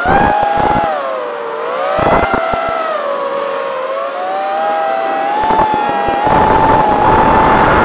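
FPV quadcopter's electric motors and propellers whining, several close tones gliding up and down together as the throttle changes. Bursts of wind rush on the microphone at the start, about two seconds in, and through the last two seconds.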